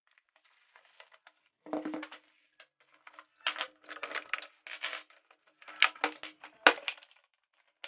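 Tools being unpacked from a hard plastic case: plastic wrapping rustling and metal chisels and drill bits clinking and knocking as they are set down on a table, with the sharpest knock near the end.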